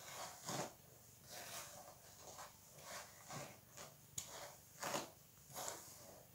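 Hairbrush strokes through long tangled hair, a faint scratchy swish with each stroke, about two a second.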